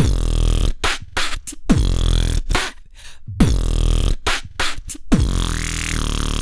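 Dubstep loops triggered in the Launchpad app: a heavy electronic bass with a deep falling-pitch hit about every second and a half, chopped by sudden short gaps, and a synth swell near the end.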